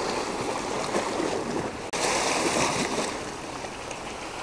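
Sea waves washing and churning over shore rocks, with a louder surge of surf about two seconds in.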